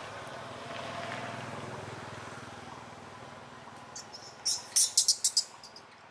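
Macaque biting and crunching into a durian husk: a quick run of sharp, crackly crunches about four and a half seconds in, the loudest sound here, after a low steady hum in the first few seconds.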